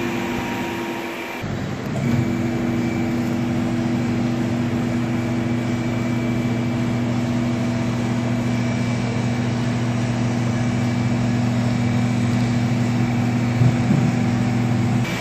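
Electric hydraulic pump motor of a two-post vehicle lift running with a steady hum as it raises a heavy pickup truck; it cuts out briefly and starts again about two seconds in.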